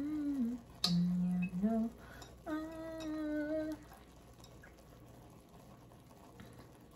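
A woman humming a few wordless notes with her lips closed, ending on one held note; a single light click, like chopsticks tapping, sounds about a second in. After about four seconds the humming stops.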